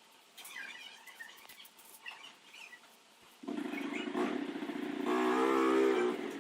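A motor starts suddenly about halfway through and then runs steadily with a humming pitch, growing louder over the last second or so. Before it there are only faint, scattered small sounds.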